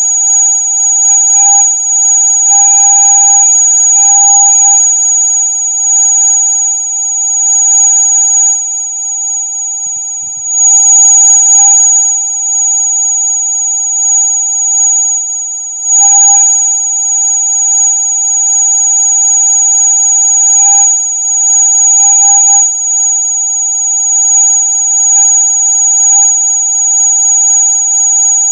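Electronic rat-repellent sound: several steady synthesized tones at once, a loud shrill high whistle over a lower steady tone, sounding without a break. Its loudness dips briefly twice, near the middle.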